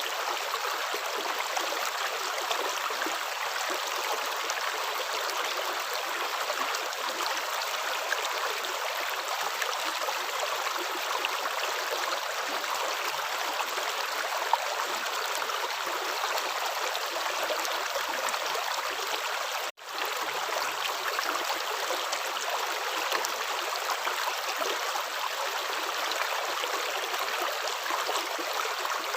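Water running steadily in a stream, an even rushing and gurgling, with a split-second dropout about two-thirds of the way through.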